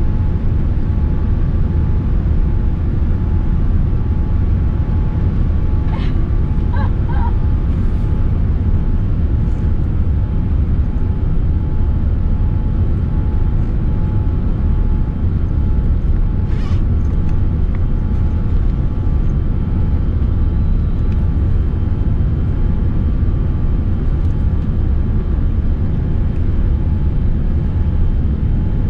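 Steady low rumble inside the cabin of a Boeing 787-9 airliner in flight, engine and airflow noise with faint steady tones above it. A few brief faint clicks come about six and sixteen seconds in.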